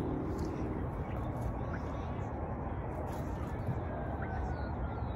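Steady low outdoor background noise with a few faint, short bird chirps in the second half.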